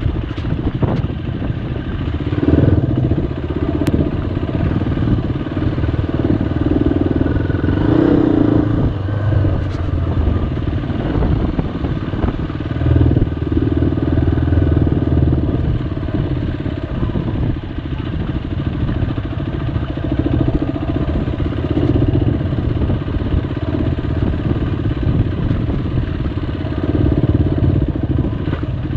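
Motorcycle engine running while the bike is ridden slowly, the revs rising and falling a little.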